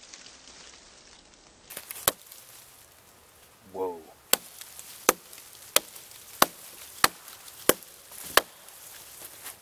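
GRIP fiberglass-handled camping hatchet chopping into a small fallen log: one blow, then a run of seven quick blows about two-thirds of a second apart. The hatchet is unsharpened, straight out of the box.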